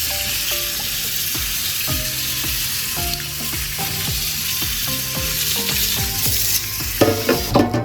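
Hot tap water running hard into a kitchen sink and spraying over a part being rinsed, a steady hiss that cuts off near the end. Soft background music plays underneath.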